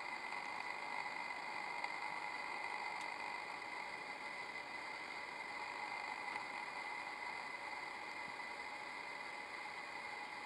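Steady faint background hiss with an even, high-pitched hum running through it. No call or footstep stands out.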